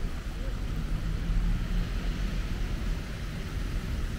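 Traffic on a rain-wet city street: cars driving by with a steady hiss of tyres on wet pavement over a low engine rumble.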